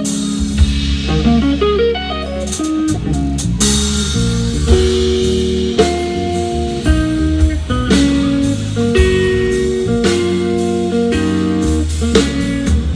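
Blues band playing an instrumental passage with no vocals: electric guitar notes over bass and a drum kit.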